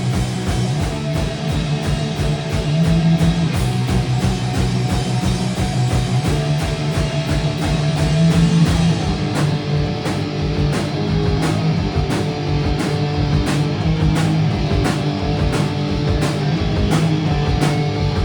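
Live hardcore punk band playing an instrumental passage: distorted electric guitars and bass holding chords over fast, driving drums.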